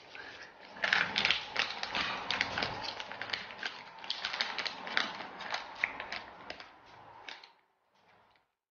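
Plastic jelly packaging being crinkled and fingered close to the microphone: a dense run of irregular crackles and clicks that cuts off suddenly near the end.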